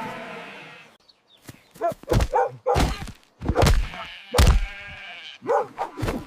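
Sheep bleating in short cries, mixed with several heavy thumps.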